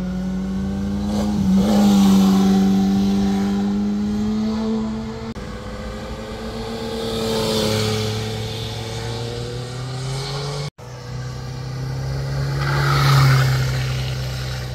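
Motorcycle engines passing one after another through a hairpin bend, each revving and gliding in pitch as it pulls out of the turn, swelling and fading three times. The sound drops out for an instant about two thirds through.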